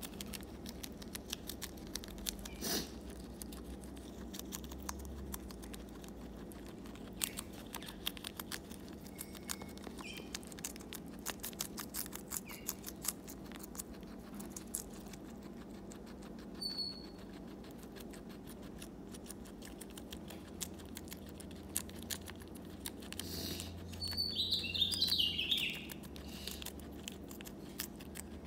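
Guinea pig chewing a lettuce leaf close to the microphone: rapid, continuous crunching and nibbling clicks. A short high-pitched squeak stands out about three seconds before the end.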